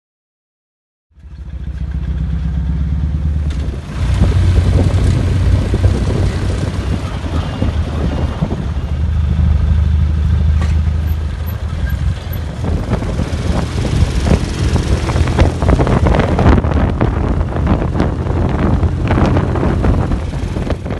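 Sidecar motorcycle's engine running steadily while riding, with wind rushing over the microphone. It starts about a second in, grows louder a few seconds later, and cuts off suddenly at the end.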